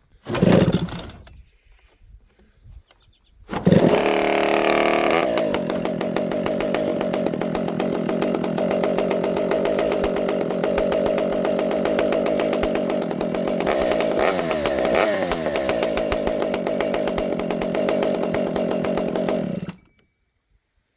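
Dolmar 7300 two-stroke chainsaw with a homemade expansion pipe, started right up about four seconds in after a short rasp. It runs fast for a moment, then settles into a steady idle with a small blip of speed near the middle, and shuts off abruptly a second before the end.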